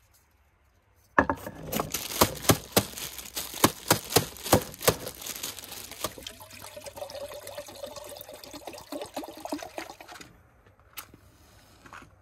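Sharp clinks and knocks of metal camp-stove parts being handled and set down on a wooden table, then water poured from a plastic bottle into a Fire-Maple Jetboil-style cooking pot in a steady stream for a few seconds. Near the end, a single sharp strike of a match.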